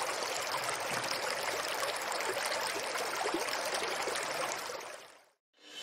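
Running water of a small cascading stream, a steady rush that fades out near the end.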